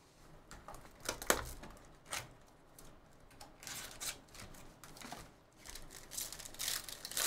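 A sealed trading-card box knocked and handled on the table, with a sharp knock about a second in, then the box opened and a foil pack wrapper crinkling and tearing in short spells.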